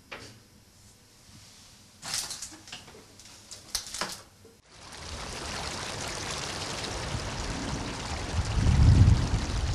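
A few soft rustles and knocks in a quiet, small tiled room, then about five seconds in a steady rushing noise cuts in, with gusts of wind rumbling on the microphone near the end.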